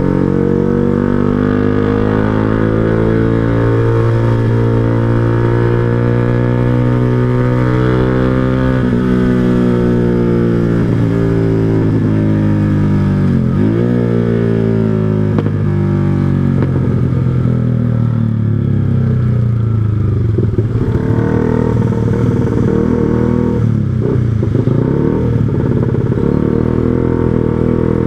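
Yamaha R15 V2's 150 cc single-cylinder four-stroke engine being ridden through an aftermarket exhaust, a Proliner TR1R Short silencer on a 3Tech Racing header, its pitch rising and falling with the throttle. About fourteen seconds in, the revs drop sharply and climb again. In the last third they settle lower and run less evenly.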